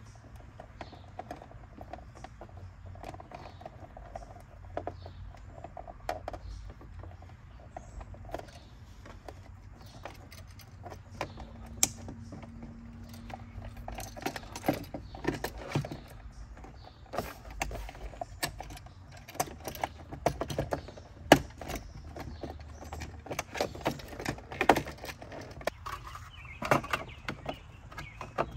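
A receptacle, its screws and a plastic cover being handled and fitted into an outdoor electrical box, with a screwdriver at work: scattered small clicks, taps and clinks that grow busier in the second half. A low steady rumble runs underneath.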